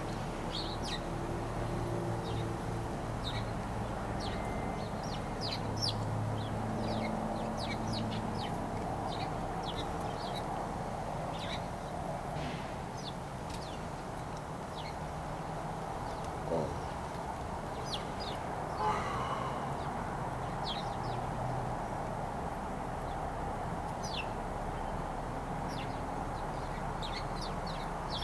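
Birds chirping: many short, high chirps scattered irregularly, with a louder call about two-thirds of the way in, over a steady low hum.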